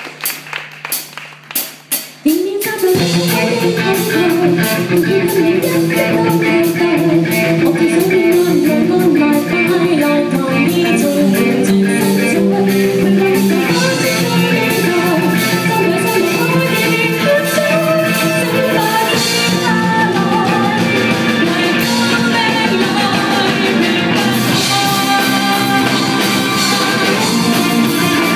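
Live rock band: a few sharp ticks, then about two and a half seconds in the full band comes in with electric guitars, bass and drum kit, and a woman sings lead over it.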